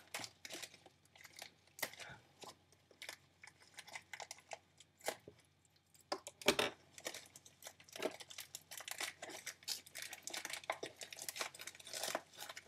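A mailed package being torn open by hand, its wrapping ripped, crinkled and rustled in irregular bursts, with small knocks; the loudest rip comes about six and a half seconds in.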